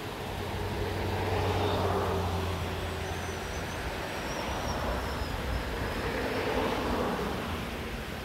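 Vehicles passing on the road. The sound swells and fades twice, loudest about two seconds in and again about six and a half seconds in.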